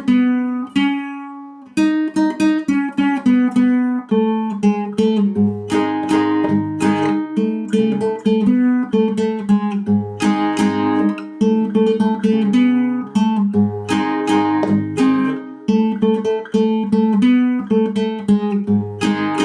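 Acoustic guitar playing a melody as single plucked notes, with low bass notes added underneath from about five seconds in.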